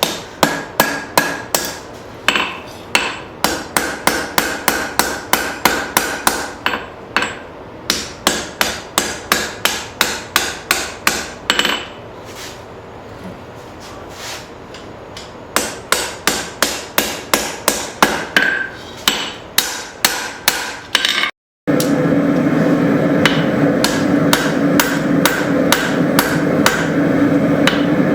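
Rounding hammer striking hot leaf-spring steel on an anvil in quick, regular blows, about three a second, with a short lull in the middle. After a sudden break near the end, the blows go on over a louder steady rushing noise.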